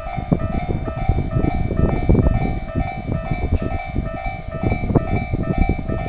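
Japanese level-crossing warning bell ringing in its steady repeating electronic 'kan-kan' tone, over the loud low rumble and clatter of train wheels on the rails.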